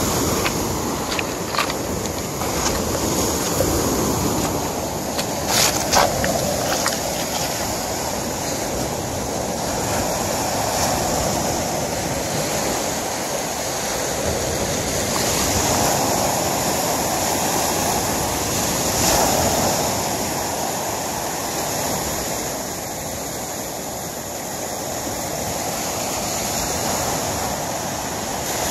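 Small waves breaking and washing up a pebble beach, the surf rising and falling every several seconds. A few sharp clicks of footsteps on the wet stones come in the first seconds.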